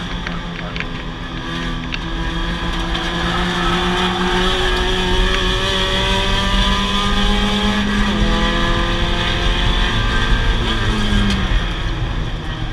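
Mazda Miata race car's four-cylinder engine at race pace, heard from inside the stripped cockpit over wind and road noise. The revs climb steadily for several seconds, change about eight seconds in, and fall away near the end as the car slows for a corner.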